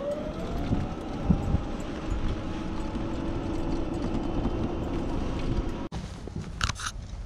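Golf cart driving over grass: a steady motor whine that rises at first, over low rumble and rattle. It cuts off suddenly about six seconds in, followed by a couple of short rattles.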